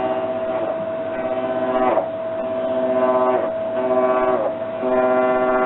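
Hitachi BD-V9500 drum washer-dryer making an abnormal noise: a steady high whine with a louder humming drone that comes and goes several times, its pitch falling away at the end of each stretch.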